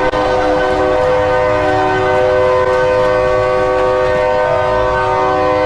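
Arena goal horn, a multi-tone air horn held on one steady chord.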